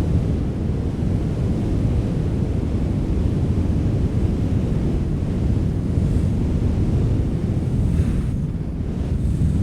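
Wind blowing steadily, a low rushing rumble.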